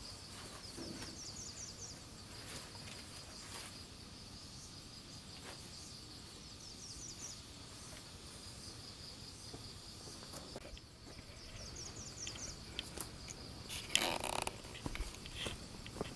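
Insects droning with a steady high-pitched note, joined about every five seconds by a short run of rising chirps. Scattered clicks and rustling, with a louder rustle near the end.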